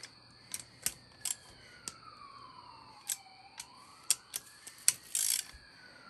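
Socket ratchet clicking and clinking irregularly on the stator cover bolts as they are run in and tightened, with a short rattle about five seconds in. A siren wails faintly behind it, rising and falling slowly.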